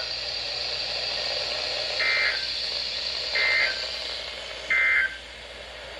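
Weather radio static hiss, then three short electronic data bursts about 1.3 seconds apart. These are the SAME end-of-message codes that close a NOAA Weather Radio severe thunderstorm warning.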